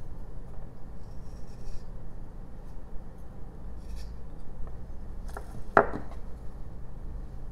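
Carving knife paring thin cuts from a small jelutong block, with faint scraping strokes and a short tick. Near the end comes a sharp wooden knock, the loudest sound, as the knife is laid down on the wooden bench.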